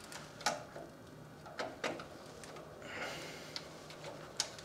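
A few scattered sharp clicks of a screwdriver tip seating in and turning the terminal screws of a three-phase surge protection device, as the screws are backed off half a turn.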